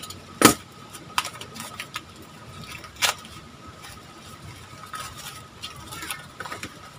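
Corrugated cardboard wrapping being handled and pulled apart: rustling and crackling with scattered sharp clicks, the loudest crack about half a second in and another about three seconds in. A faint steady high whine runs underneath.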